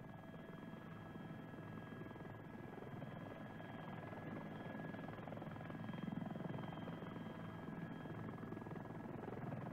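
Helicopter in climbing flight heard from inside the cabin: a steady drone of rotor and engine with fast low pulsing and a steady high whine, gradually getting louder.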